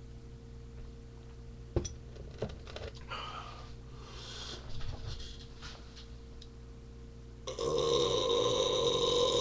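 A long, loud deliberate burp that starts suddenly near the end and is still going, after a few faint clicks.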